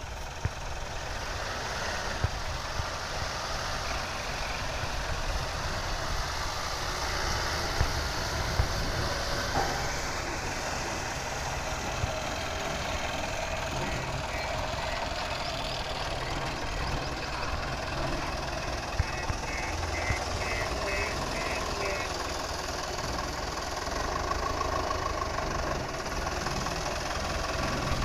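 Diesel engines of heavy machinery (a backhoe loader and tipper trucks) running steadily, with scattered knocks. About halfway through, a reversing alarm beeps in quick repeated pips for several seconds.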